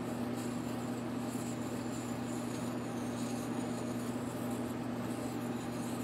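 A steady low hum with an even hiss over it.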